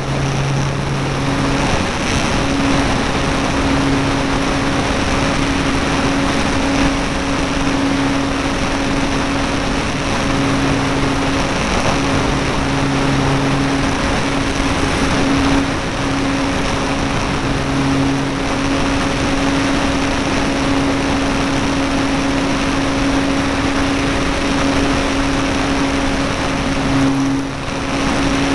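E-flite Apprentice RC trainer's electric motor and propeller running steadily in flight, heard through a camera mounted on the plane, with wind rushing over the microphone. The hum holds a steady pitch, with a lower tone that comes and goes and a short dip near the end.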